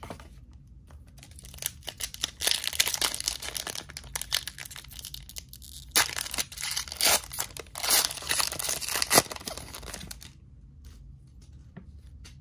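Foil Disney Lorcana booster pack wrapper crinkling as it is handled and torn open. The crackling starts about two seconds in, is loudest in the middle, and stops about ten seconds in.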